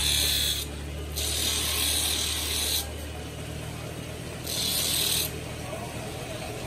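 Motor-driven grinding wheel grinding a steel pliers blank in bursts: a harsh hiss each time the metal is pressed to the wheel, three times, over the steady hum of the running motor.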